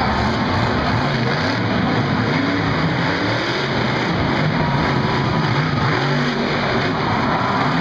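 Monster truck's supercharged V8 engine revving up and down hard as the truck drives across the dirt and pops a wheelie.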